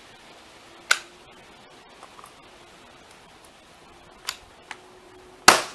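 A few sharp clicks over a faint steady hiss: one about a second in, two close together past the four-second mark, and the loudest near the end followed quickly by a smaller one.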